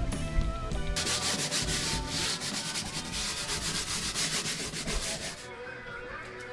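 Rapid, repeated scrubbing strokes against a hard surface, starting about a second in and stopping a little after five seconds, with faint background music beneath.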